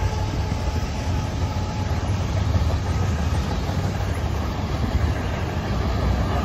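Freight train's tank cars and covered hopper cars rolling past, a steady rumble and rattle of steel wheels on the rails.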